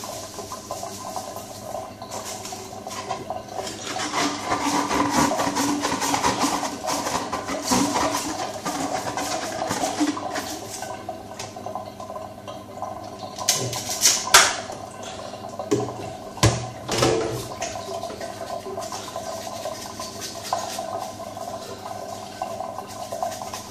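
Tap water running and splashing into a stainless steel sink as a clear acrylic protein skimmer tube is rinsed under it, with a few sharp knocks a little past halfway.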